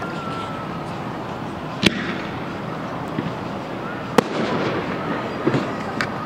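Aerial firework shells bursting: a sharp bang about two seconds in and a louder one about two seconds later, then a few smaller crackling pops near the end.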